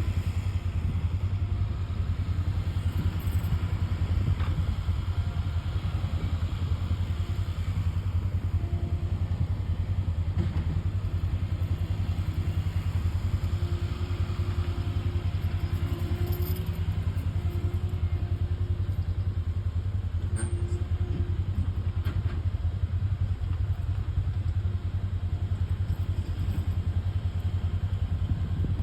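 Old Massey Ferguson tractor engine running steadily at an even speed.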